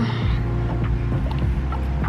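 Background music with a steady, heavy bass beat.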